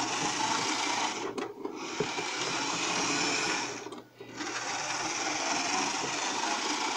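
Piko HO-scale BR 80 model steam locomotive running on track: a steady whirr from its small electric motor and gear drive, with wheel noise on the rails, briefly dropping out about four seconds in. Freshly serviced, it runs smoothly.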